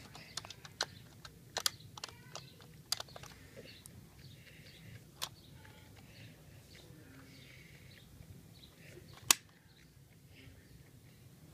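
Die-cast model cars being handled and moved on carpet: scattered small clicks and taps with soft scraping, the loudest a single sharp click about nine seconds in.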